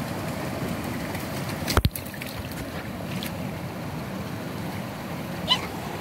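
Steady rush of a small stream running over rocks. A sharp knock about two seconds in, and a short high chirp near the end.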